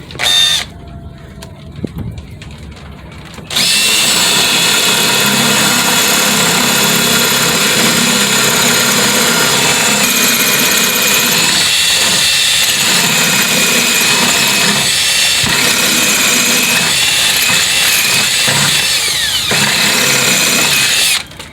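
Electric drill boring a hole in the wall for a plastic wall anchor, running steadily with a whine for about seventeen seconds and stopping just before the end. A short thump comes about half a second in.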